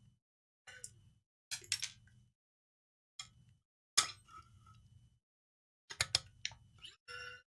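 Battery analyser's white metal case and its internal parts being handled and pried open by gloved hands: a series of separate light metallic clicks and clinks, the sharpest about four seconds in and a quick cluster about six seconds in.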